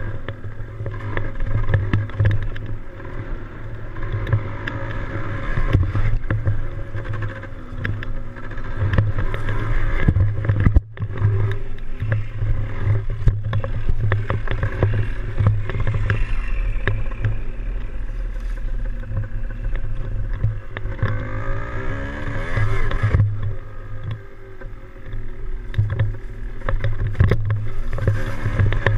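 Yamaha DT175 two-stroke single-cylinder engine running under way, its revs rising and falling, with the pitch climbing clearly a little after twenty seconds in.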